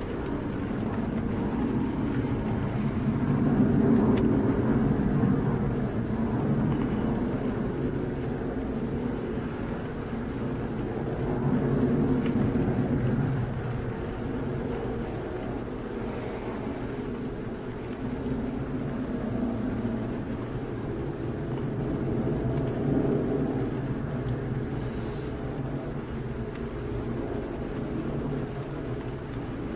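Steady low rumble of distant vehicles, swelling and fading slowly. About 25 seconds in, a western burrowing owl chick gives one brief high-pitched call.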